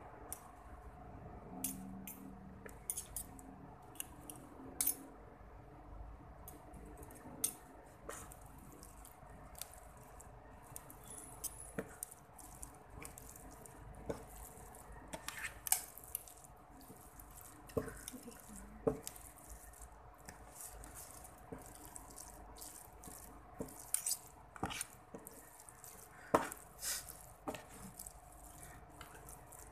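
Metal fork and spoon clicking and scraping in a paperboard takeout box while stirring saucy palabok noodles, with irregular wet, sticky mixing sounds. A faint steady hum runs underneath.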